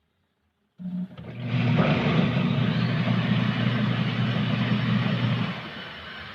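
Washing machine motor running with a steady electric hum and a rushing mechanical noise. It starts about a second in and stops about five seconds later.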